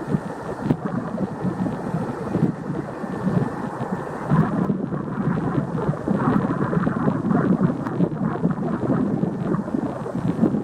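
Airbus A318's two CFM56 turbofan engines at takeoff thrust: a steady, heavy jet rumble with a ragged crackle running through it, rising and falling a little in level, with some wind buffeting the microphone.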